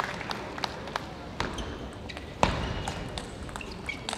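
A celluloid-type table tennis ball bouncing a few times on the table and floor between points: scattered sharp clicks at uneven spacing, the loudest about two and a half seconds in.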